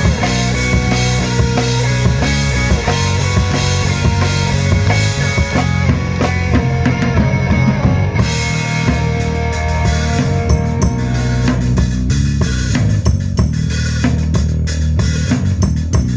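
Rock band playing, with the drum kit to the fore: steady bass drum and snare beating under the rest of the band.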